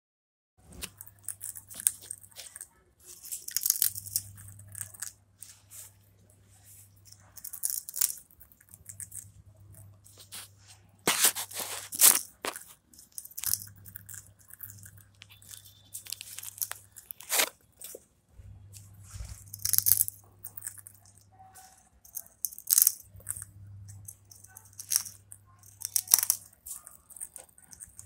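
A green parakeet biting and crunching a piece of dry cracker-like snack held in its foot: irregular crisp crunches and cracks, loudest about eleven to twelve seconds in, over a faint low hum that comes and goes.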